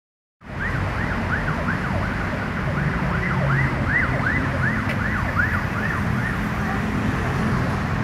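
An emergency-vehicle siren yelping, its pitch rising and falling about three times a second, over the steady rumble of city traffic; the siren fades out near the end.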